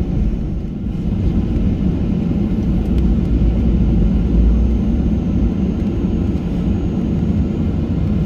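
Cabin noise of a Boeing 737-800 heard from a window seat: the CFM56 engines and airframe give a steady low rumble as the aircraft rolls along the ground.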